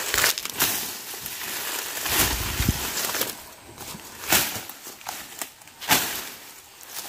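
A billhook blade on a long pipe handle swung repeatedly through weeds and brush. Each stroke is a sharp swish and crack of cut stems with leaves rustling, about half a dozen strokes at uneven intervals.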